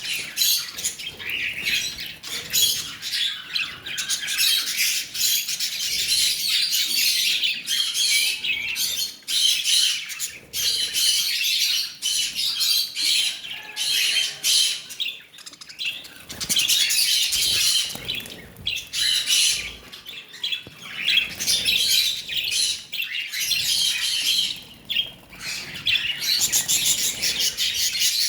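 Lovebirds chattering with rapid, high-pitched chirps and squawks, almost without a break.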